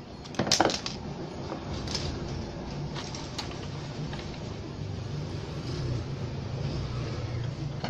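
Metal clatter and scattered clicks and knocks as the metal chassis and front panel of a power amplifier are handled and a circuit board is worked loose, the loudest clatter about half a second in. A low steady rumble runs underneath.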